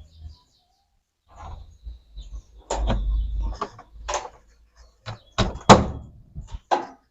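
Plastic tank cover of an Electrolux LAC13 washing machine being pressed and knocked into its clips: a series of sharp knocks and snaps, the loudest a little under six seconds in.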